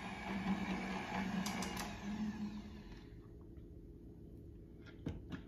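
Electric stand mixer running with its wire whisk, beating egg whites toward soft peaks in a stainless steel bowl, then stopping about three seconds in. A few sharp clicks near the end come from the mixer head being handled.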